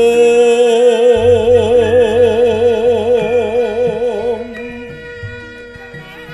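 Javanese gamelan accompanying a wayang kulit shadow-puppet play: a loud, long held sung note with a wide, even vibrato for the first four seconds or so, over the ringing metallophones of the gamelan, with soft regular low beats coming in about a second in.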